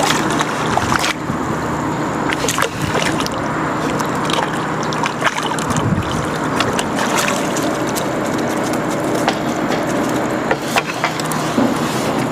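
Steady rushing river water with scattered sharp clicks and small splashes over a low steady hum.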